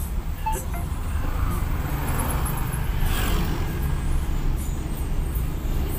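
Toyota Avanza's engine and tyre noise heard from inside the cabin while driving, a steady low rumble, with a brief hiss about three seconds in.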